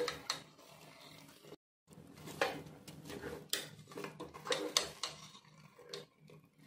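Plastic spatula scraping and knocking against the inside of a pressure cooker while stirring drumstick pieces through thick masala, in irregular strokes, broken by a moment of dead silence about one and a half seconds in.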